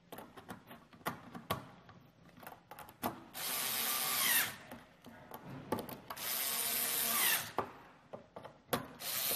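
Cordless electric drill-driver with a 5.5 mm nut socket spinning steel nuts down onto battery bus bars, in two runs of about a second each, starting a little after three seconds and about six seconds in. Light clicks and taps fall between the runs.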